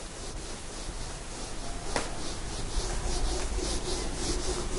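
Whiteboard eraser wiping marker off a whiteboard: quick back-and-forth rubbing strokes, about four a second, growing louder after about two seconds, with one sharp tap about two seconds in.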